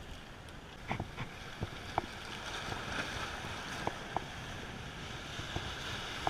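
Sea waves washing and breaking against jetty rocks, with wind on the microphone. A few short, sharp clicks come between about one and four seconds in.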